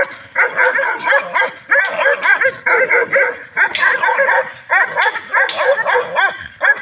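Bakarwal dog whining and yipping in a fast string of short, high, rising-and-falling calls, broken by a few brief pauses.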